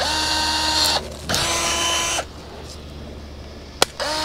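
Handheld cordless power pruning tool used to cut tree limbs. Its motor spins up quickly and runs at a steady pitch in two bursts of about a second each. A sharp click comes near the end, and another burst starts just after it.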